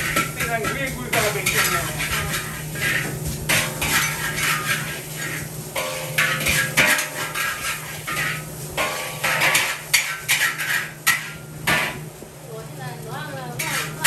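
Metal spatula and ladle clanking and scraping against a wok during stir-frying, many sharp strikes throughout, over a steady low hum.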